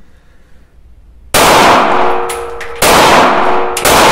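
Shadow Systems MR920 Elite 9×19 mm pistol firing three shots, about 1.3 s, 2.8 s and 3.9 s in. Each loud report is followed by a long ringing tail.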